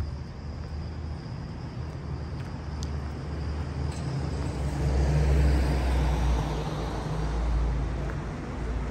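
A car engine's low rumble that swells about five seconds in, then eases near the end.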